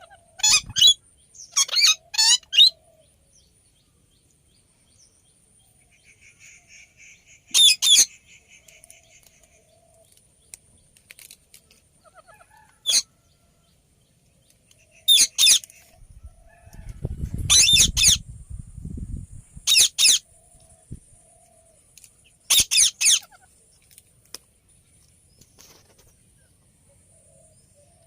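Indian ringneck parrot giving loud, shrill screeching calls in short clusters every few seconds, with some soft chattering between. Low rustling about two-thirds of the way through.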